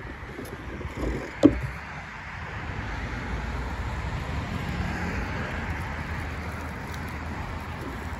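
Road traffic going by as a steady rushing that swells after a few seconds. A single sharp thump comes about one and a half seconds in.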